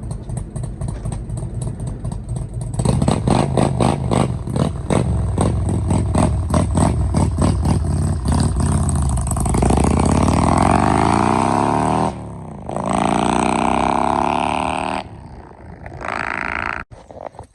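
Motor vehicle engine, loud, first with an even pulsing beat. About nine seconds in it begins to rise in pitch as it accelerates, dips briefly about twelve seconds in like a gear change, then climbs again before cutting off near the end.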